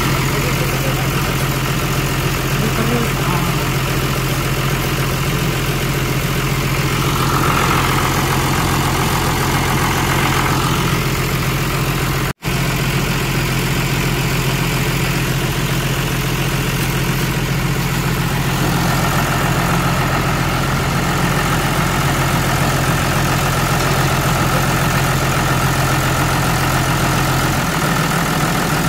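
A vehicle engine running at a steady idle, with an even low drone throughout. The sound cuts out for an instant about twelve seconds in.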